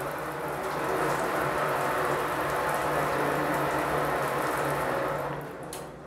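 Water running from an instant electric water heater tap and splashing steadily into a stainless steel sink, dipping briefly near the end.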